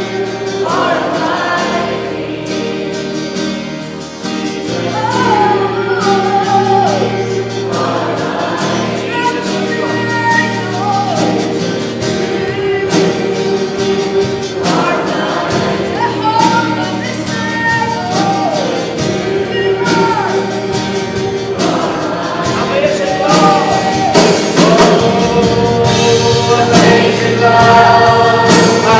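Congregational worship music: a band accompanying voices singing together, a steady sung melody over held chords, growing fuller and brighter near the end.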